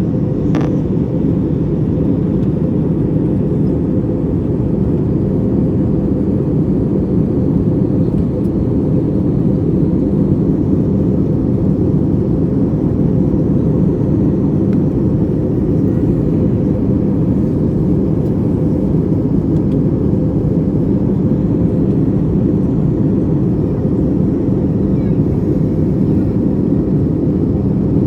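Steady low drone of an airliner in flight, heard inside the cabin: engine and airflow noise holding an even level throughout.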